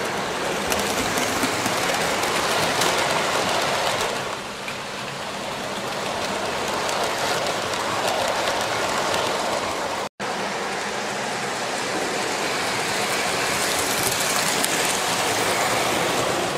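OO gauge model train, a steam locomotive hauling coaches, running along the track: a steady rushing rumble of the motor and wheels on the rails. It breaks off for an instant about ten seconds in.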